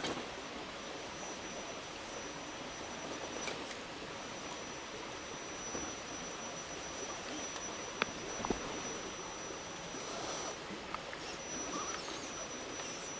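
Steady rushing background, like a stream in a wooded gorge. A thin, high, steady whine runs through it and drops out a few times, and a couple of light knocks come about eight seconds in.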